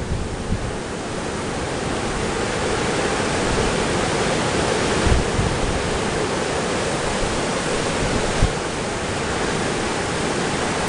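Wind-driven lake waves washing on the shore: a steady rushing noise that swells over the first couple of seconds, with wind buffeting the microphone underneath.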